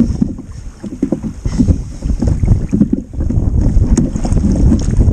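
Wind buffeting an action camera's microphone on a kayak: a low, rumbling rush that rises and falls unevenly, with a light click about four seconds in.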